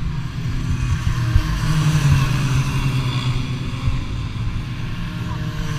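Small 80cc racing engine running hard at speed, its pitch rising and falling slightly, with a rush of wind over the microphone.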